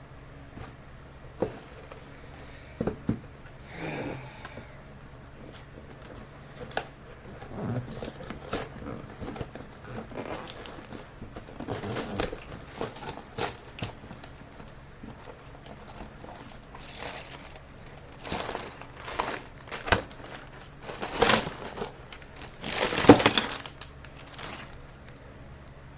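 A LEGO set's cardboard box being opened by hand: tearing and rustling of cardboard, with plastic parts bags crinkling as they are handled. The noises come in irregular bursts, the loudest a few seconds before the end.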